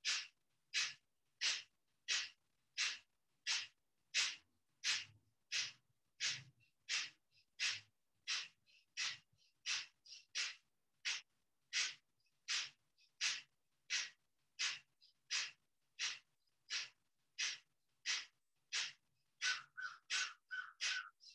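A woman doing breath of fire: quick, rhythmic breaths pumped in and out through the nose by the belly, about one and a half a second and steady throughout.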